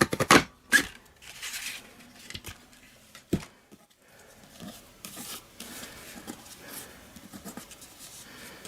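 A paper craft punch and cardstock being handled: a quick run of sharp clicks at the start, a single knock a few seconds in, then light paper rustling.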